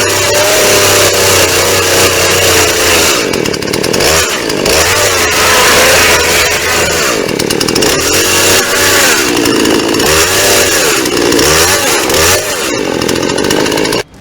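Chainsaw running at high speed, its pitch dropping and climbing back again and again as it cuts into a box; it stops suddenly near the end.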